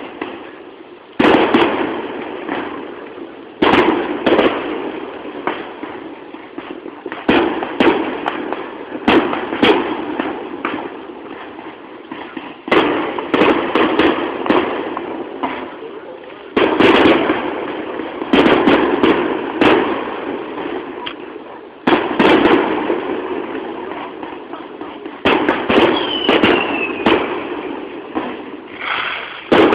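Aerial firework shells bursting one after another, a sharp bang every one to four seconds, each fading slowly into crackle and echo, with a short falling whistle near the end. Recorded on a mobile phone's microphone, which cuts off the high end.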